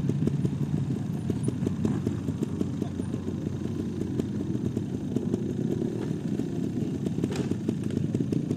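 Several trials motorcycles idling in a line, their engines keeping up a steady low, rapid putter.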